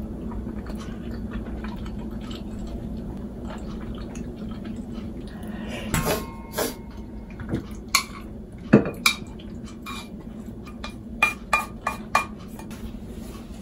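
Kitchen utensils clinking, knocking and scraping against a cooking pot and bowl as leftover pasta is scooped out. The sharp clinks, some ringing briefly, come in a loose string from about halfway through, over a steady low hum.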